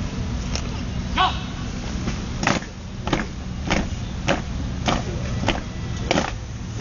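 Marching drum beating single strikes in steady march time, a little under two strikes a second, settling into an even beat from about two and a half seconds in.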